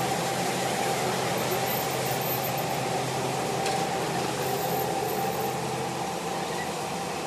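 Machinery running steadily with a steady whine over a wide rushing noise, easing off slightly toward the end.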